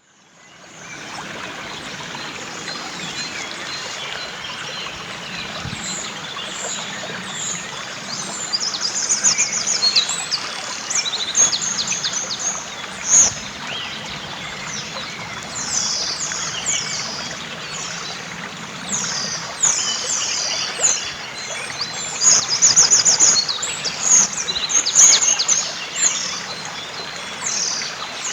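Several small songbirds singing with quick high chirps, trills and down-slurred notes over the steady rush of a river. The sound fades in at the start, and the birdsong grows busier and louder after the first several seconds.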